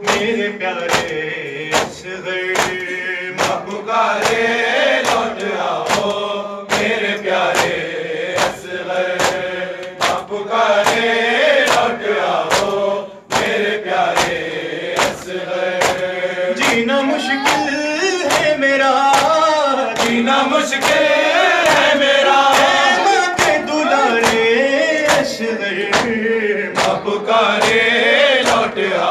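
Men reciting a noha, an Urdu lament, into a microphone, with the crowd chanting along in unison. A steady rhythm of sharp hand strikes on chests (matam), a little over one a second, keeps time under the singing.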